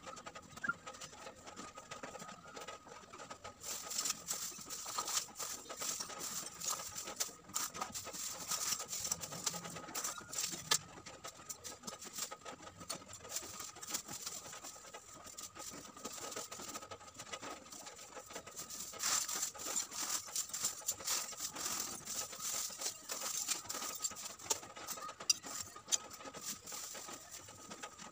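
Lumps of coconut charcoal clinking and a thin plastic bag crinkling as the charcoal is handled and bagged: a rapid, uneven scatter of small clicks and rustles that gets busier from about four seconds in.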